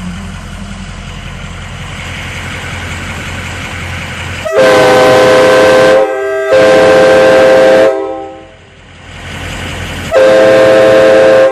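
Nathan Airchime K5LA five-chime train horn blown in three blasts, each a loud steady chord of several tones lasting just over a second and cutting off sharply. The first two come about half a second apart, starting about four and a half seconds in, and the third comes near the end. Before the first blast there is only a steady low hum.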